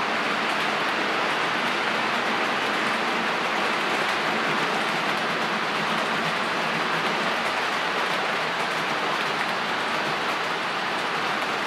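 HO scale model Auto-Train's auto-carrier cars rolling past on the track: a steady, even rolling noise of the wheels on the rails.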